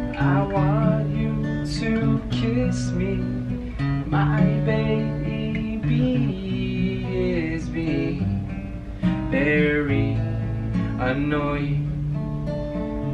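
Acoustic guitar strummed in chords while a man sings along.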